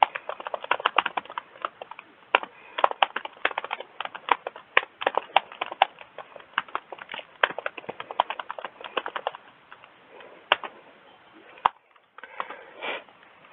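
Typing on a computer keyboard: a quick, uneven run of key clicks for about nine seconds, then a few single keystrokes near the end.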